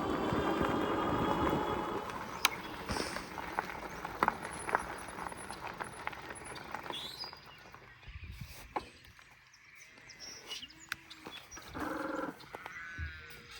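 Electric bike in motion: a steady motor whine with road and wind noise that fades away over the first half. Then, in the quieter part, a few short animal calls.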